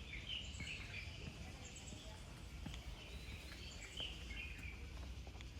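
Scattered bird chirps and calls over a low outdoor rumble.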